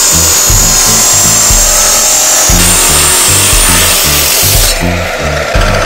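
Abrasive chop saw's cut-off disc grinding through a rusty steel bar, a steady harsh hiss that starts abruptly; its highest part drops away about three-quarters of the way through.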